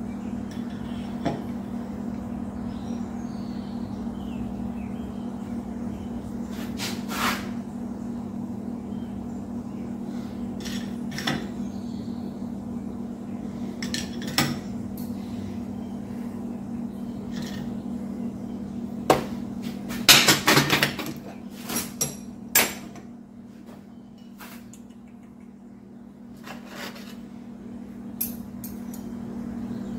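Scattered metallic clanks and clinks of stainless steel rods and a steel pipe lever knocking against a bench vise as the rods are bent, with a quick run of the loudest clanks about twenty seconds in. A steady low hum runs underneath and dips for a few seconds near the end.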